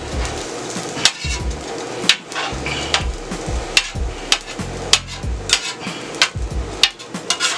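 Metal spatula striking and scraping a steel flat-top griddle in sharp, irregular clacks as onions, carrots and garlic are chopped and tossed on the hot surface.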